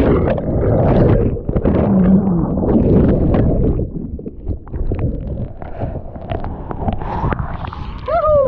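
Breaking whitewater churning and splashing over a GoPro held at water level in the surf, with the microphone partly under water. The turbulent rush is loudest for the first four seconds, then eases to the softer wash of foam.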